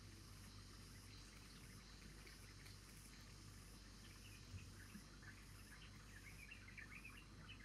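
Near silence: faint steady background hum, with scattered faint high chirps in the second half.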